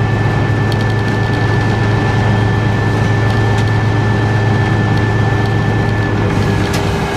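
Diesel-electric locomotive running steadily, heard from inside the cab: a heavy low engine drone with a steady high tone over it. The high tone stops about six seconds in, and a few light clicks come about a second in.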